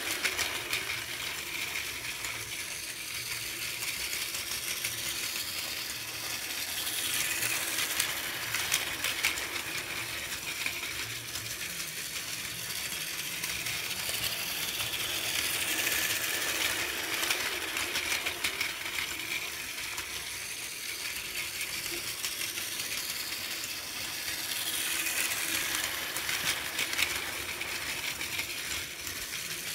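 Plarail toy Shinkansen trains (400 series and E4 series) running on blue plastic track: a small battery motor's steady whir with dense clicking and rattling of the wheels over the track, growing louder twice as a train passes close.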